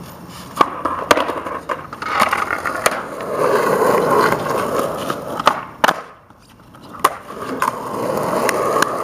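Skateboard wheels rolling on asphalt, with sharp clacks of the board every second or so. The rolling dies away about six seconds in and builds again near the end.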